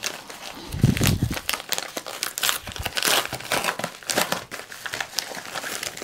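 A paper mailer envelope being opened and handled, crinkling and rustling, then the clear plastic bag inside crinkling as it is pulled out. A dull thump about a second in.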